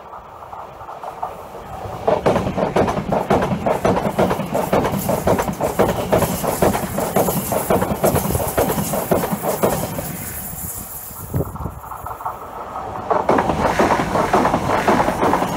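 Francilien (Z50000) electric multiple unit approaching and passing close at speed, its wheels clattering rapidly on the rails. The noise fades about 11 seconds in, then another train passes close near the end.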